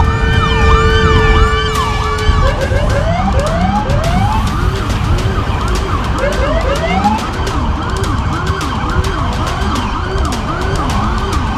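Several police escort sirens yelping at once, their fast rising and falling sweeps overlapping, over a low rumble of traffic. A steady horn-like tone sounds through the first two seconds or so.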